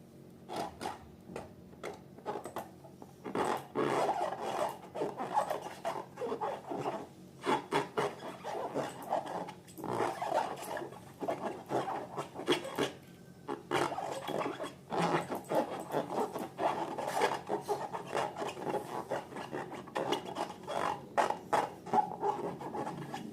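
Slime being worked and squished, giving a continuous run of small, irregular wet clicks, crackles and pops.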